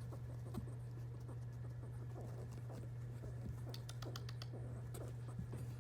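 Pet squirrel making soft, quick clicking and scratching sounds, with a cluster of sharper clicks about four seconds in, over a steady low hum.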